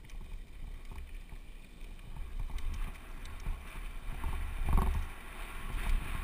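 Wind rumble on a helmet camera and the tyres of a Giant Glory downhill mountain bike rolling over a loose dirt-and-gravel trail, with light rattles from the bike over bumps. There is a louder clatter a little before five seconds in.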